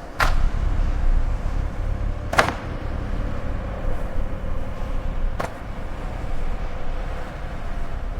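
Steady low rumbling background noise with three short sharp clicks: one just after the start, one about two and a half seconds in, and one about five and a half seconds in.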